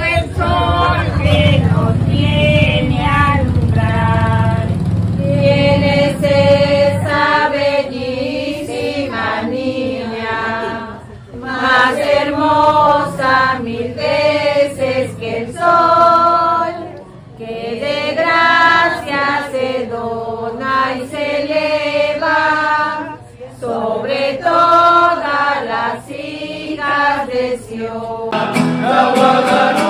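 A group of women singing a devotional hymn together, one phrase after another with short breaths between. Near the end it cuts to a different song.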